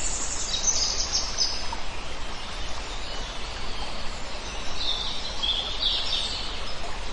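Songbirds chirping high over a steady rush of flowing water, with clusters of calls in the first second or so and again around five seconds in.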